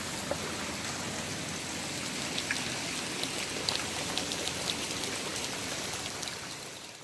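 Rain falling steadily: an even hiss with scattered sharper drop taps, fading out at the very end.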